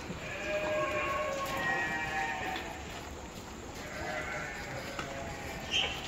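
Goats bleating in long drawn-out calls, one lasting about two seconds near the start and another from about four seconds in.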